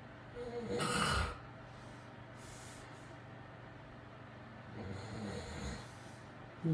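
A man snoring in his sleep: one loud snore about half a second in and a softer one about five seconds in, with a short sound at the very end.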